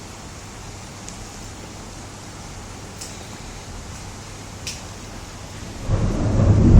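Steady faint hiss with a few faint ticks; about six seconds in, a loud low rumble sets in and swells.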